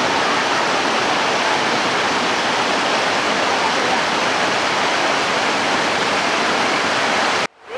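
Waterfall's steady roar of falling water, which cuts off suddenly near the end.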